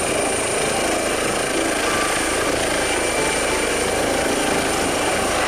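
Eurocopter EC135 air ambulance helicopter lifting off and hovering low. Its rotor and turbine run steadily, with a steady high whine on top.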